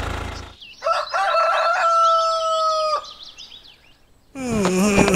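A rooster crowing once, a long held call of about two seconds, with small birds chirping around it. Music starts near the end.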